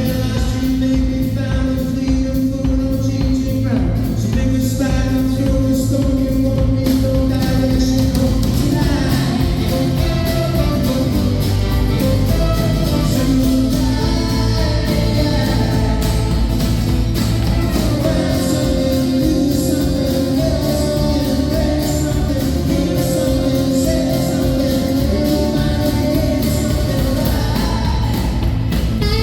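Live band music with guitar and a singing voice holding long notes, at a steady level throughout.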